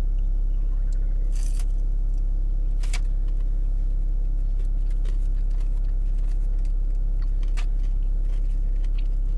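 Steady low rumble inside a car, with a few short crackles and clicks from crisp fried chicken being bitten and chewed and a cardboard food box being handled.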